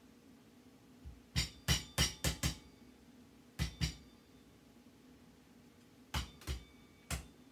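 Garlic being crushed with a pestle in a mortar: ten sharp, slightly ringing knocks in three quick bunches of five, two and three.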